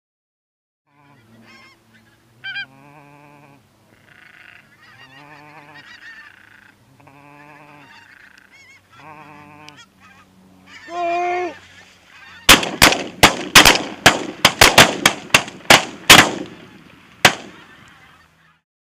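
A flock of geese honking overhead, with one louder call just before the shooting. Then a rapid volley of about fifteen shotgun shots from several guns over some five seconds, much louder than the calls.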